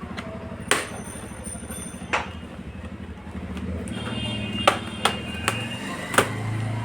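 Sharp clicks and taps from handling a laptop and tools while opening it for a RAM upgrade, about six in all and irregularly spaced, over a low steady hum.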